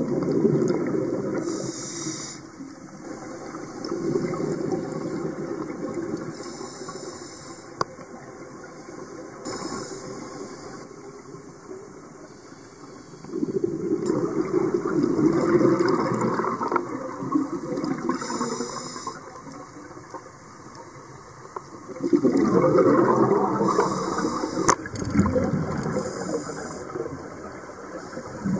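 Scuba diver breathing through a regulator underwater. Long bubbling rushes of exhaled air come every few seconds, each followed by a short hissing inhalation.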